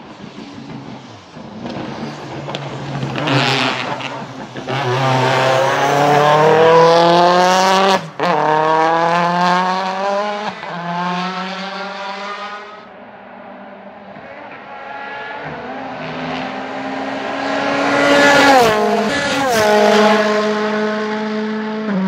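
Citroën C-Elysée WTCC race car's 1.6-litre turbocharged four-cylinder engine accelerating hard past, its pitch climbing through the gears with a sudden shift break about eight seconds in. The sound fades, then rises again, dropping sharply in pitch twice near the end before settling to a steady note.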